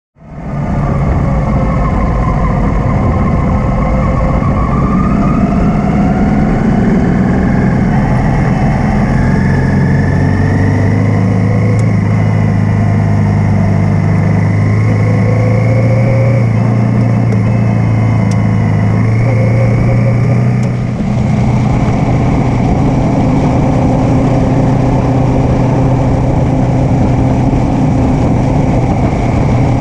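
Honda Africa Twin motorcycle riding at road speed, its engine note rising and falling with wind rush on a tank-mounted camera. The sound changes abruptly about two-thirds of the way through, at a cut to a different stretch of riding.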